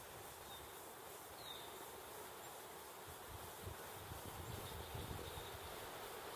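Faint, steady outdoor background hiss of a quiet wood, with low rumbling from about three to five seconds in. One brief, faint high chirp comes about a second and a half in.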